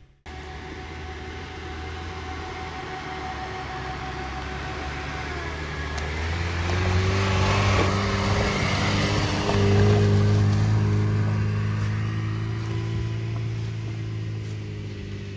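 Lada Niva's 1.7-litre four-cylinder petrol engine pulling the car along a rough track. It grows louder as the car drives past about halfway through, with tyre noise from leaves and stones at the closest point, then fades as it moves away.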